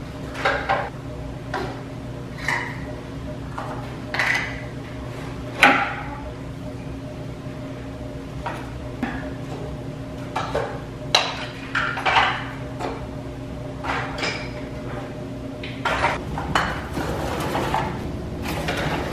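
Small toys clattering and knocking as they are dropped into woven baskets, with irregular thunks as the baskets are handled and set down, over a steady low hum.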